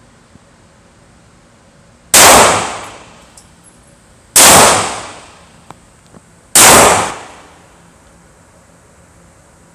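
Three shots from a Taurus PT111 G2 Millennium 9mm pistol, a little over two seconds apart. Each shot rings briefly off the walls of an indoor shooting range.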